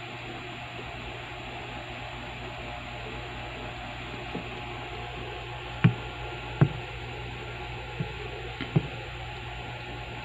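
Steady room hiss with a low hum, broken by about six soft knocks or bumps, the two loudest about six and seven seconds in.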